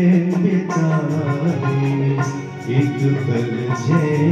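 Live Indian light-music accompaniment: a keyboard melody over tabla keeping a quick, steady beat.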